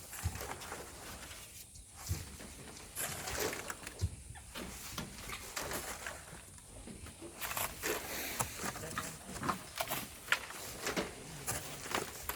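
Irregular scrapes and knocks of hand tools digging and working volcanic sand and stones, with no steady engine.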